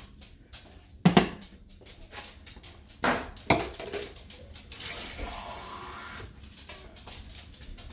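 A red ceramic Dutch oven and its lid set down on a glass cooktop with a few sharp clunks, the loudest about a second in. About five seconds in, a tap runs for about a second and a half.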